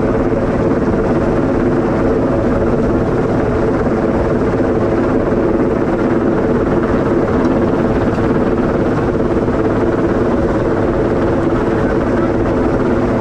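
Helicopter hovering close overhead with a slung antenna load: a loud, steady rotor and engine drone that does not change.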